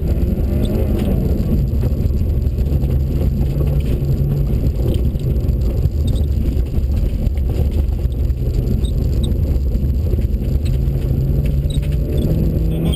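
Peugeot 106 XSi rally car's engine pulling hard, heard from inside the cabin, with the engine note rising near the end. Tyre noise and small stone ticks come from a loose gravel surface.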